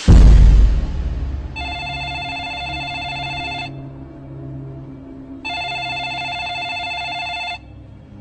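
A deep boom right at the start, dying away over about a second, then a cordless phone ringing twice with a trilling electronic ring about two seconds long each, over a low steady music drone.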